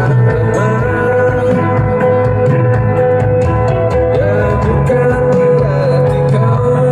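A live band playing rock-style music with guitar, heard through a large outdoor line-array PA system during a sound check.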